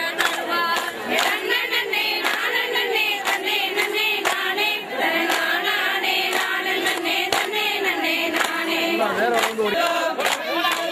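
A group of women singing together, with a steady beat of handclaps cutting through the song.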